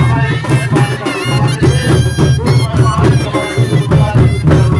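Loud traditional folk music with a steady drum beat and a melody over it.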